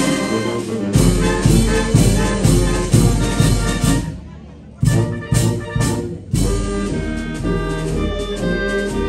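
A village wind band (banda) of clarinets, flutes, trumpets, sousaphone and drums playing a piece. About four seconds in the band breaks off briefly, then comes back with a few sharp accented chords and carries on playing.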